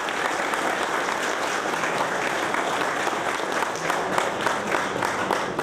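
Audience applauding: dense, steady clapping from a crowd of people.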